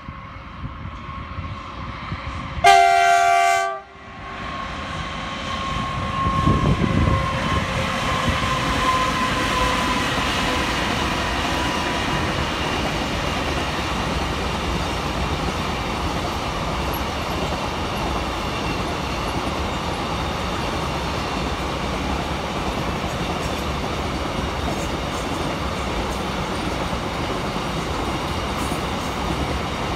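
Freight train hauling double-stack container wagons. A short horn blast sounds about three seconds in. The locomotive then passes with a whine falling in pitch, and after it comes the steady rumble and clatter of the container wagons rolling by.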